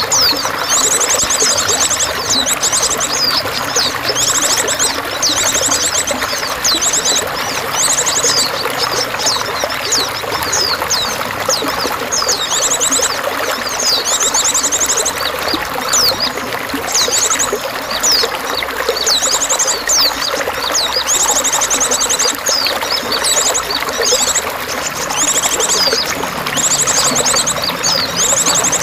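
Water running and trickling steadily, with small songbirds chirping and singing quick high trills over it again and again.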